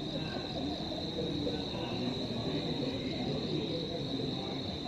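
Insects trilling steadily in the dark, a continuous high-pitched chirring, over a low background murmur.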